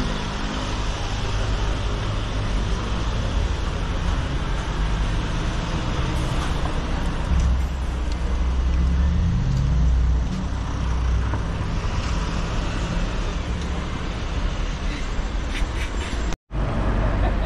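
Town street traffic: cars and city buses driving past with a continuous engine rumble, swelling in the middle as vehicles pass close. The sound cuts out for a moment near the end.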